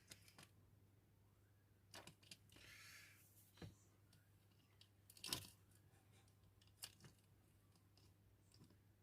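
Faint, scattered small clicks and taps of tools and small parts being handled while wiring a model locomotive's decoder, about five in all, the sharpest a little past the middle. A short soft hiss about a third of the way in, over a low steady hum.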